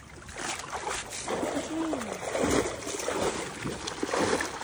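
Water splashing and sloshing as a hand net is dragged and scooped through a shallow stream, over running water.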